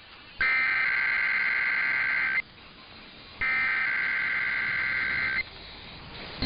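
Emergency Alert System SAME header data bursts: two screechy bursts of digital data tones, each about two seconds long and about a second apart, with a third starting at the very end. They are the coded header that opens an EAS alert.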